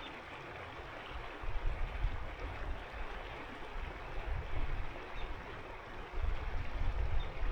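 A winter mountain river rushing steadily over its bed. A low rumble comes and goes underneath it, strongest from about six seconds in.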